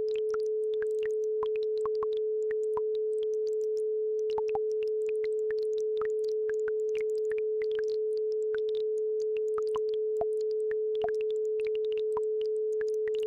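Steady pure tone at about 432 Hz, held without a break, over faint trickling and plinking of a babbling brook.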